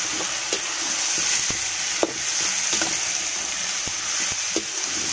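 Diced raw pork sizzling in hot oil in a pan as it is stirred, the utensil clicking sharply against the pan several times.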